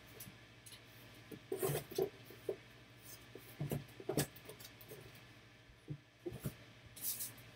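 Scattered short clicks, taps and rustles of objects being handled on a desk, a few strong ones about two seconds in, around four seconds and near the end, over a low steady hum.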